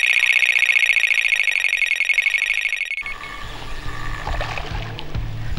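Electronic carp bite alarm sounding a fast, unbroken stream of high beeps for about three seconds, a run that signals a fish taking line, then cutting off. Music with a steady bass beat comes in after it.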